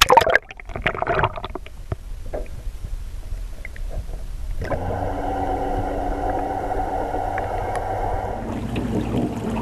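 A splash as the camera goes under the surface, then muffled underwater gurgling. About halfway through, an electric trolling motor starts and its propeller spins up, giving a steady whine with several tones heard through the water; the whine changes near the end.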